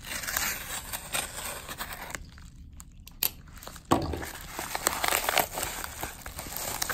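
Kraft-paper padded mailer being slit and pulled open by hand, its paper crinkling and tearing with many small crackles. It goes quiet briefly a little after 2 s, then there is a sharp click and louder crinkling from about 4 s in.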